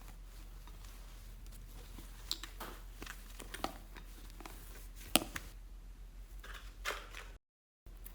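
Slime being squished and worked by hand: scattered small sticky clicks and pops, the sharpest about five seconds in. The sound cuts out for a moment near the end.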